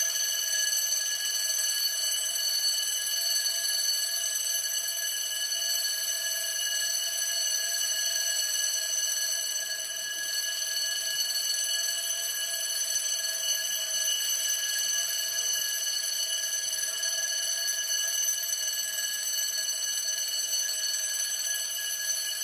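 Fire alarm ringing constantly, a steady unbroken high-pitched ring, going off with no fire in sight.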